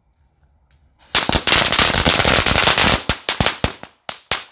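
String of small firecrackers (a 200-shot ladi) going off about a second in, a dense rapid run of bangs. It thins out to a few separate last pops near the end.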